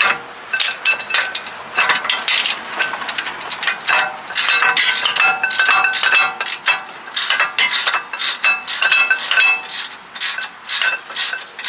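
A socket ratchet clicking in quick, irregular runs, with ringing metal clinks, as the 15 mm bolt of a rear brake caliper support bracket is undone.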